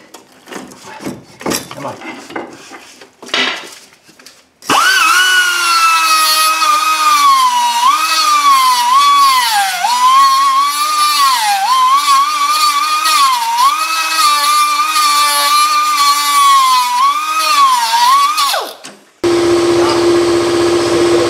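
Cutoff wheel grinding down a rusted sway bar end link stud to make it flush with the suspension arm. After a few clanks as the tool is set in place, the wheel spins up to a loud high whine about five seconds in, and its pitch dips again and again as it bites into the metal for about fourteen seconds before stopping. A steady, lower hum starts suddenly near the end.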